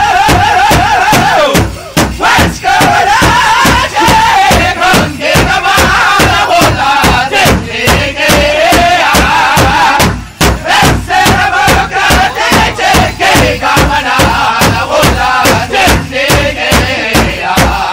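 Mi'kmaq powwow drum group singing loudly in high, wavering voices over a steady beat on a large drum.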